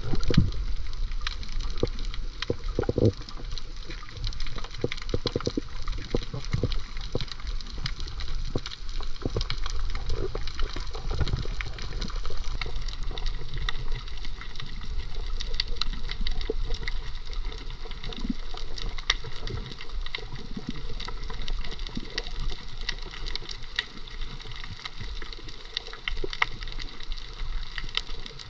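Water sounds heard underwater while snorkelling over a coral reef: sloshing and gurgling, with a constant crackle of tiny clicks. A few heavier low thumps come in the first few seconds and again about ten seconds in.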